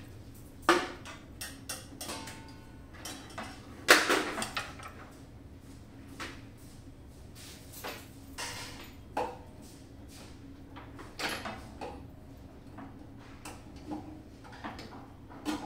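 Irregular clicks, knocks and rattles of hands working on the casing and panels of a Phoenix Medical resuscitator, the loudest a knock about four seconds in, over a faint steady hum.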